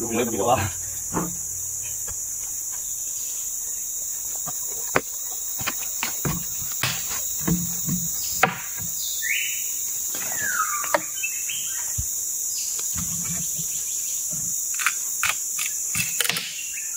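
A steady, high-pitched drone of forest insects throughout, with scattered knocks and a couple of short creaks as a heavy sawn ironwood slab is levered off the log with a wooden pole and shoved by foot.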